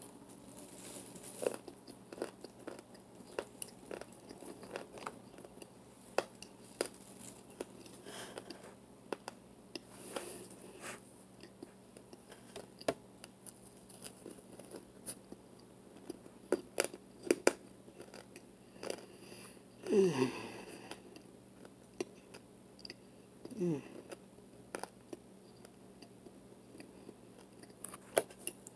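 Close-up crunching and chewing of hard chunks of compacted starch powder, with irregular sharp crunches throughout. Two short falling tones about two-thirds of the way through are the loudest moments.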